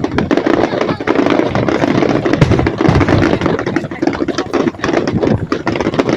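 Fireworks display going off: a dense, unbroken run of sharp pops and bangs from many shells bursting in quick succession, over a steady rumble.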